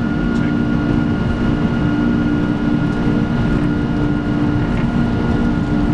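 Steady flight-deck noise of a Boeing 747-400 with its engines running: a low rumble under a constant hum.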